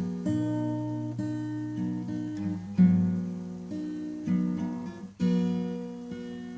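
Acoustic guitar strumming chords that ring and fade, with a hard strum every two to three seconds.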